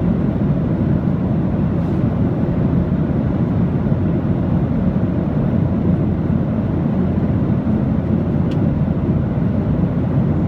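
Steady, bass-heavy roar of an aircraft in flight, even and unbroken.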